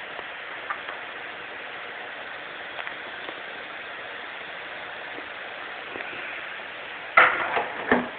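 Steady hiss of an IPL hair-removal machine running, with a few faint clicks. Near the end, loud bumps and rustling as the phone is handled.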